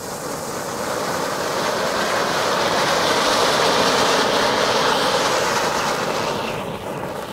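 Funke silver ground fountain firework hissing steadily as it sprays sparks. The hiss swells to its loudest midway, then dies away as the fountain burns out near the end.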